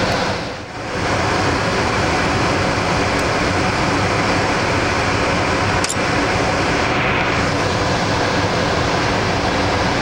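Steady rushing of filtered air blowing through a class 100 clean room, with a single small click about six seconds in.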